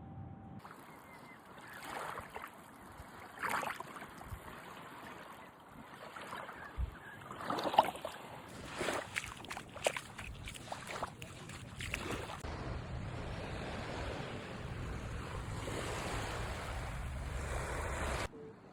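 Small waves washing on a beach with wind buffeting the microphone, broken in the first half by scattered brief sharp sounds. The sound cuts off suddenly near the end.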